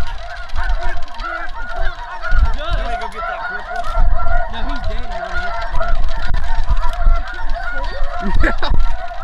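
Dense chorus of snow goose calls, many short high honks overlapping without a break.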